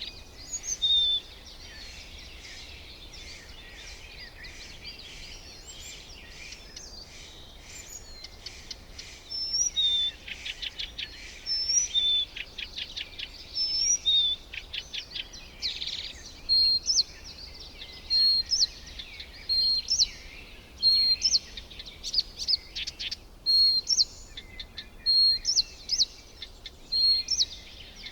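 Several birds calling and chirping over a steady high hiss of background birdsong. There are short rattling runs of notes, then from about halfway in one bird repeats a short, high, clipped note roughly once a second.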